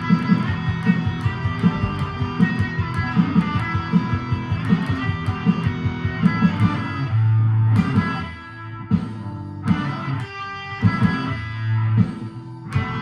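Guitar played over a backing track: a run of fast, rhythmic picked notes, then two held low notes with brief drops in between near the end.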